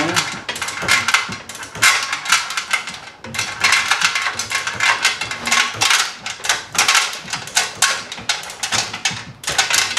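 Manual chain hoist being hauled up by its hand chain, the chain rattling and clicking through the hoist in a fast, continuous stream of metallic clatter as it lifts a heavy load.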